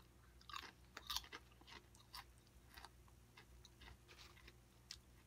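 A person biting into and chewing a Lay's ketchup-flavoured potato chip: faint, irregular crunches, the clearest in the first second or so.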